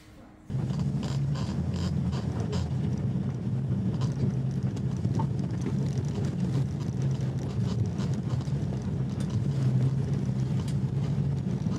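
A motor vehicle's engine running steadily with a low hum, with scattered knocks and rattles; it starts abruptly about half a second in.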